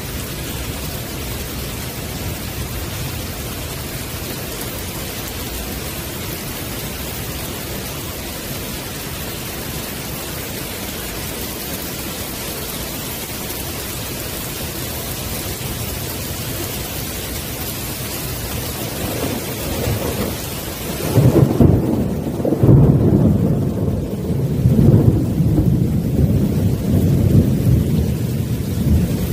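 Heavy rain pouring steadily onto a wooden deck. About twenty seconds in, thunder rolls in: a deep rumble that swells and eases in several waves over the last eight seconds.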